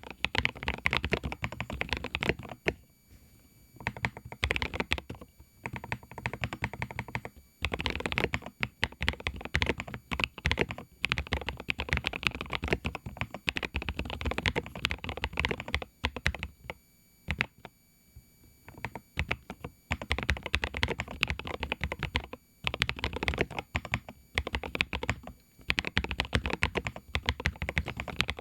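Typing on a Lofree Dot Foundation mechanical keyboard with custom 45 gf Gateron Baby Raccoon linear switches: a deep, muted 'thocky' keystroke sound, its sharp high clicks damped by the board's sound-absorbing build. It comes in bursts of rapid keystrokes with short pauses between them.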